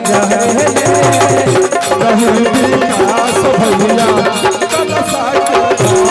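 Live Bhojpuri stage-band music between sung lines: a melody over a busy hand-drum rhythm.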